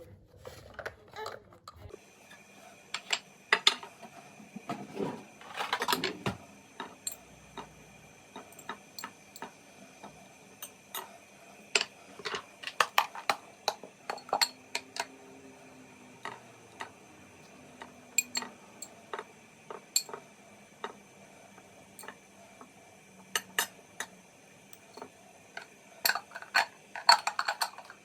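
Dishes and cutlery clinking and knocking in irregular, sharp taps, with a busier cluster of clatter near the end.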